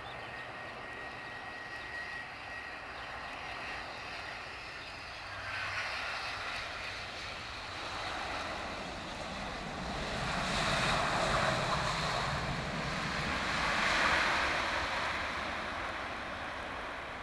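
Jet airliners' turbofan engines running during landing and takeoff, a steady rushing noise that grows louder partway through and is loudest about two-thirds of the way in.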